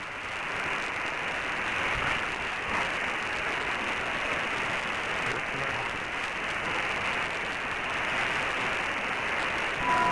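Steady hiss of noise, like static, even throughout with no distinct events.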